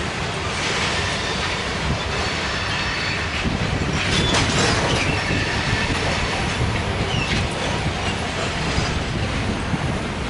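Covered hopper cars of a freight grain train rolling past, a steady rumble of steel wheels on the rails. Brief high wheel squeals cut in about four seconds in and again near seven seconds.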